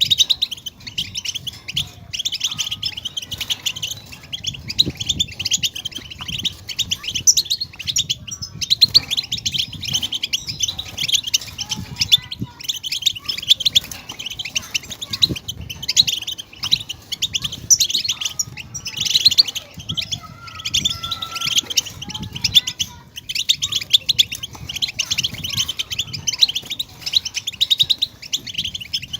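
European goldfinch song: fast, unbroken twittering and chattering.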